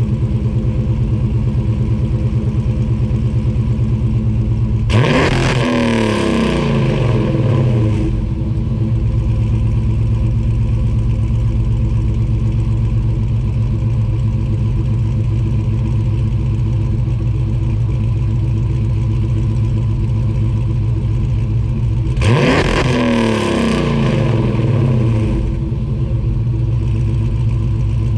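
A 2009 Dodge Challenger SRT8's Procharger-supercharged 6.6-litre stroker V8 running at idle, blipped twice to a sharp rev that falls back to idle over about three seconds.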